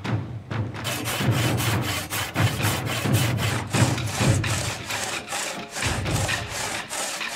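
Large Japanese hand saw rip-sawing a big pine log lengthwise by hand, the blade cutting through the wood in quick, regular strokes.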